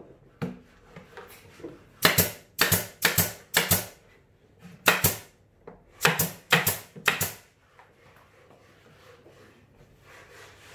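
Pneumatic nail gun driving nails into the plywood panels of a subwoofer enclosure: about eight sharp shots in quick runs, a group of four about two seconds in, one near five seconds and three more after six seconds, then it stops.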